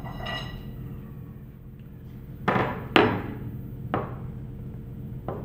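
A metal part rings briefly near the start, then metal parts and tools knock as they are handled and set down: two loud clunks about half a second apart, then two lighter knocks. A steady low hum runs underneath.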